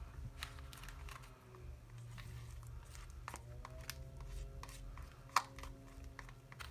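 Scattered small clicks and taps of hands handling slime-making materials on a table, with one sharper tick about five and a half seconds in, over a low steady hum.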